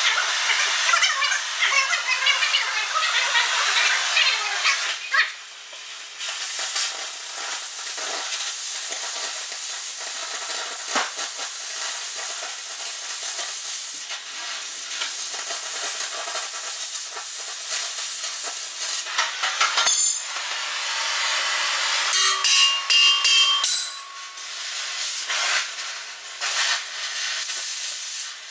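An electric arc working the steel blade of a John Deere 1010E forwarder, a steady loud hiss broken by short pauses about five seconds in and near fourteen and twenty-four seconds.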